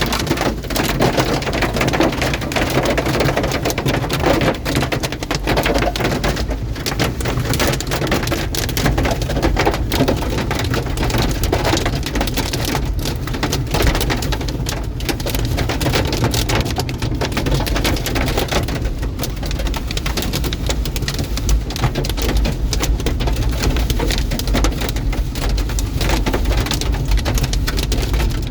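Large hail and rain pounding down in a dense, continuous clatter of impacts, with a low rumble underneath.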